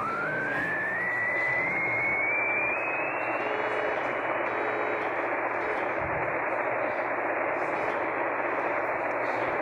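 Radio static: a steady hiss of receiver noise with a whistle that dips and then climbs steadily in pitch over the first three seconds or so. A few faint short beeps sound underneath.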